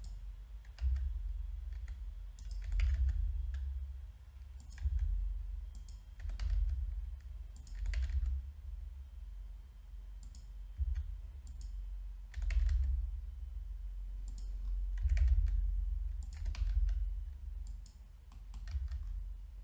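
Computer keyboard keys and mouse buttons clicking now and then, single clicks a second or two apart, over a low background rumble.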